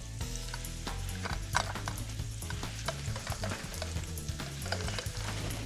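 Wooden spoon stirring and scraping spinach around a frying pan, with frequent short scrapes and a light sizzle, over low background music with a steady bass line.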